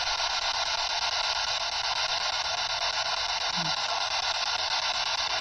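Steady hiss of radio static with a quick, even flutter, heard while waiting for a spoken reply, as in a spirit-box session.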